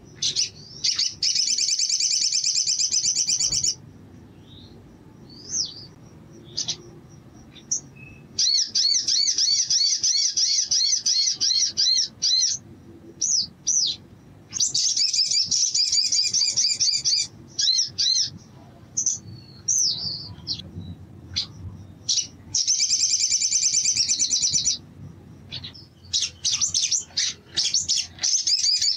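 Male olive-backed sunbird singing: about five bouts of rapid, high trills, each lasting a few seconds, with short sharp chips between the bouts.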